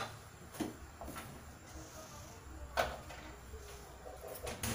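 Kitchen utensils against a stainless steel soup pot: a sharp knock at the start as the ladle is lifted out, then a few softer clicks and taps, one about three seconds in, over a faint low steady hum.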